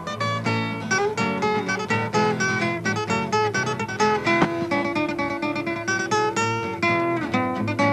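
Background music: lively plucked acoustic guitar, quick notes and strums.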